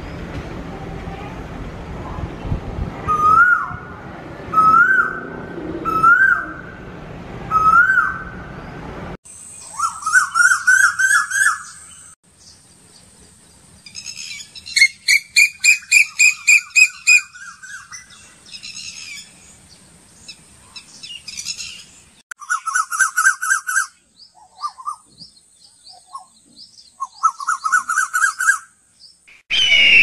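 Asian koels calling. A loud rising two-note whistle repeats about every one and a half seconds at first. After about nine seconds come quicker runs of rising notes and rapid high series of short notes.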